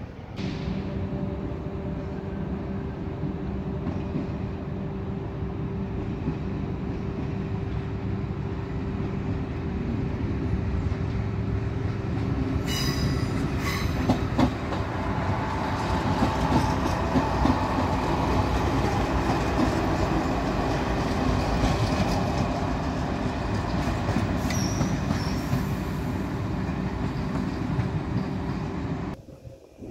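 Croatian Railways (HŽ) electric multiple unit train running past with a steady rumble and hum, its wheels clicking over rail joints about 13 to 14 seconds in and giving a brief squeal near the end.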